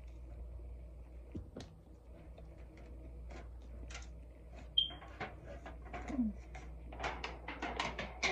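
Disposable aluminium foil baking pan being handled: scattered light crinkles and clicks of the foil, growing busier near the end.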